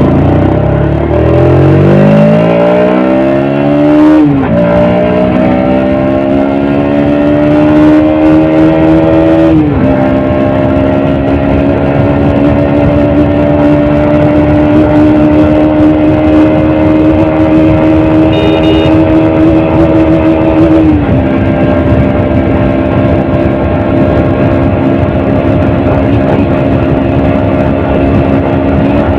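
Stock exhaust of a Bajaj Pulsar NS125 BS6's 125 cc single-cylinder engine, pulling up through the gears. The engine pitch climbs, drops at a shift about 4 s in, climbs again to a second shift about 10 s in, then holds steady. It eases down once more about 21 s in and runs on at a steady speed.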